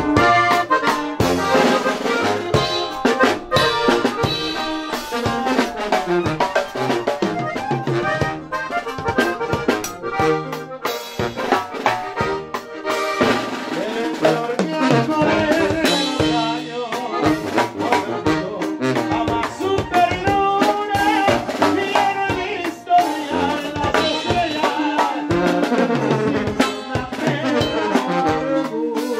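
Live band music: a button accordion playing the lead over tuba and a drum kit.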